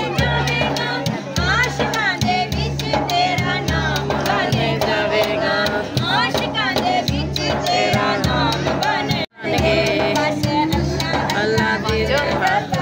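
Music with singing over a steady, repeating low beat, cutting out briefly about nine seconds in.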